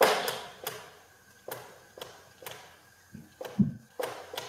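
Marker pen tapping and stroking on a whiteboard as digits are written: a string of sharp clicks, about two a second. A low thump about three and a half seconds in.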